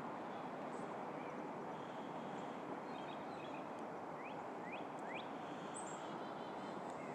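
Steady outdoor background rumble with a few faint bird chirps, including three quick rising chirps about four to five seconds in.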